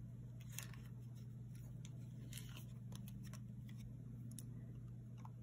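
Faint handling noise as a model skull is turned over in the hands: a few scattered soft clicks and rustles over a steady low hum.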